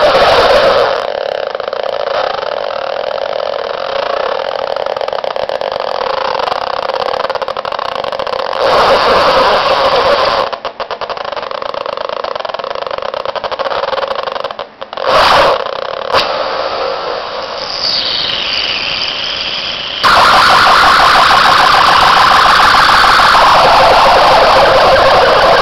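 Circuit-bent toy keyboard producing harsh electronic tones that change abruptly several times. About two-thirds through, a falling sweep comes in, and a louder, rapidly pulsing tone takes over for the last few seconds.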